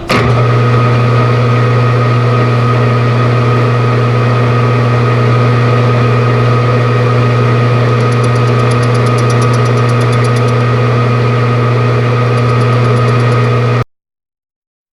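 Metal lathe running steadily with a loud, even motor hum, spinning a cast vise tailpiece in the chuck; a faint rapid ticking joins in about halfway through, and the sound cuts off suddenly near the end.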